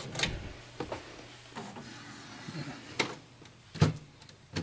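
A handful of sharp plastic clicks and knocks from hands handling an inkjet printer and its ink cartridges' plastic caps, about six separate taps spread over a few seconds, the loudest near the end.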